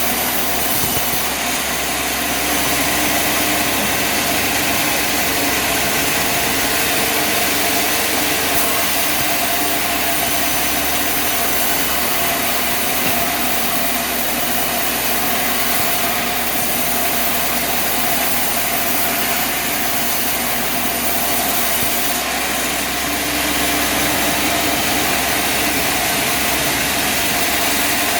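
Machinery engine running steadily and loudly, with no change in speed.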